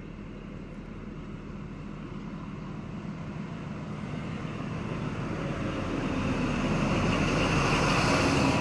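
NSW TrainLink XPT diesel passenger train approaching, its engine and wheels rumbling and growing steadily louder as it nears.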